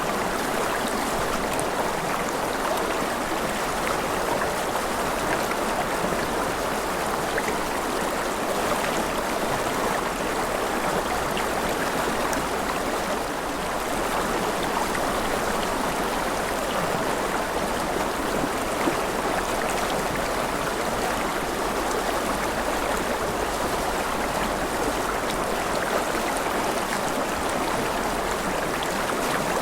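Steady rushing water, an even hiss at a constant level with a few faint scattered ticks.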